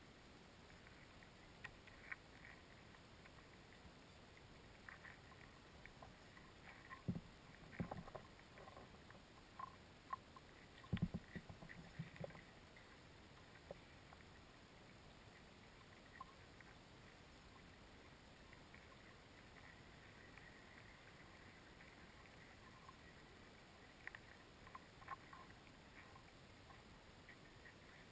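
Near silence heard through an underwater camera, a faint steady hiss broken by scattered small clicks and ticks, with a few dull knocks clustered about seven to eight and eleven to twelve seconds in.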